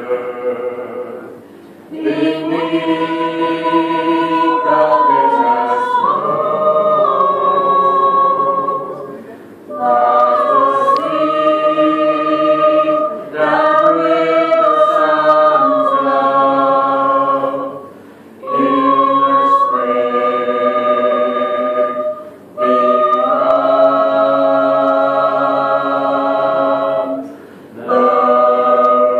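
Mixed-voice choir singing a cappella: long held chords in phrases of several seconds, with short breaks between phrases.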